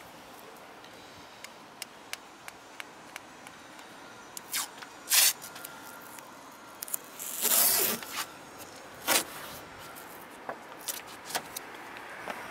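Blue masking tape being pulled off the roll and laid onto a car body panel: four short ripping bursts, the longest about a second long a little past the middle, with light clicks and taps from handling the tape between them.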